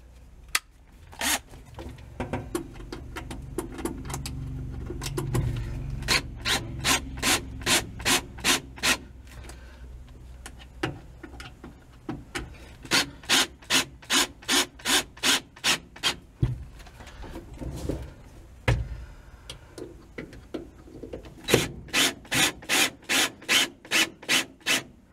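Cordless drill/driver driving screws into a parking brake boot retainer. The motor's hum builds over the first few seconds, then come three runs of sharp, even clicks, a few a second, as the drill's clutch ratchets once each screw seats.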